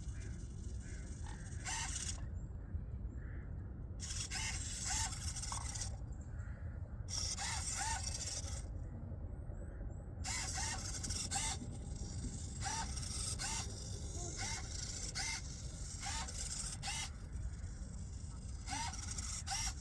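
Steady wind rumble on the microphone, with short splashing bursts about once a second from the oars of a 1:10 scale RC rowing dory, and faint short chirps between them.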